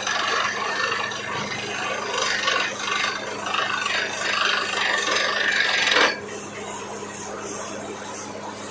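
Borewell drilling rig running: a steady engine hum under loud, harsh rattling noise. The harsh noise cuts off sharply about six seconds in, leaving the hum and a quieter hiss.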